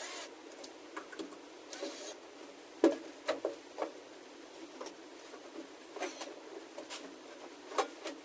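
Irregular light clicks and knocks of hand tools and parts being handled, with short scraping rustles at the start and about two seconds in; the sharpest knock comes about three seconds in.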